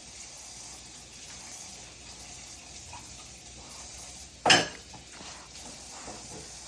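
A steady faint hiss, broken once about four and a half seconds in by a single short, sharp clatter of a hard object being knocked.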